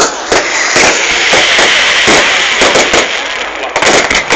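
Fireworks going off: a rapid, irregular string of sharp bangs and cracks over a constant crackling hiss.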